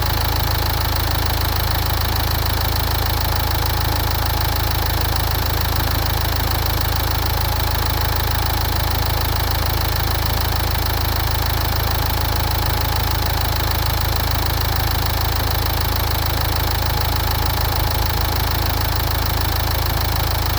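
Nissan Juke engine idling steadily during a combustion-leak (block) test of the coolant, which is bubbling: a sign of a head gasket that is starting to fail.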